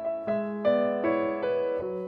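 Background piano music: a slow melody over sustained chords, new notes struck at an even pace of about two or three a second.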